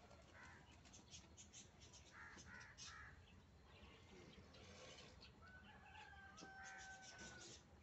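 Faint farmyard bird sounds: small birds chirping in short bursts throughout, and a rooster crowing once in a long held call in the second half.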